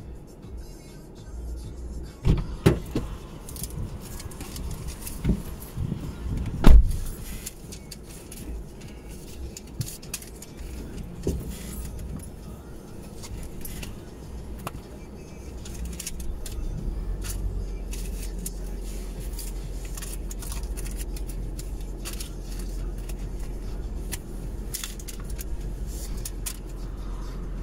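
Low rumble heard from inside a stationary car, growing louder and steadier about sixteen seconds in, with a handful of sharp knocks and thumps in the first dozen seconds, the loudest about seven seconds in.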